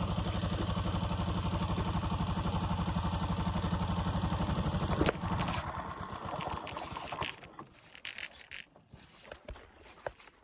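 A small engine running with a rapid, even pulse, cut off about five seconds in; afterwards only faint scattered knocks.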